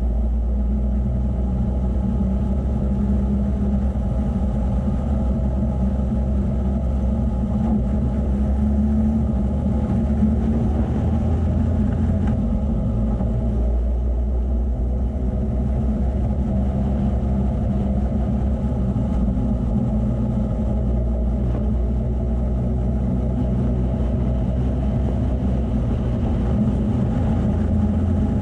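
A motor vehicle's engine running at a steady pitch as it drives over sandy desert tracks, a continuous low drone.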